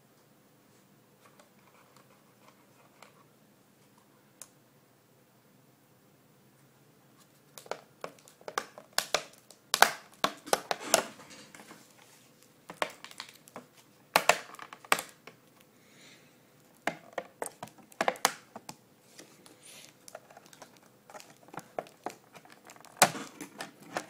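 Hands handling the plastic case of a ZOTAC ZBOX mini PC on a desk: irregular clicks, knocks and rustles, starting about a third of the way in after a quiet stretch.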